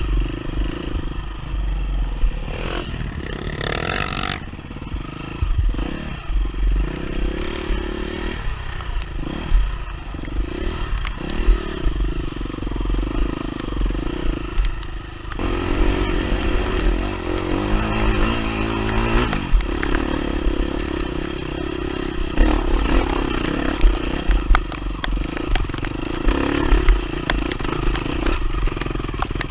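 Enduro dirt bike engine running on a trail ride, the throttle rising and falling, with the pitch climbing briefly a few seconds in and again around the middle. Rattles and clatter from the bike run underneath.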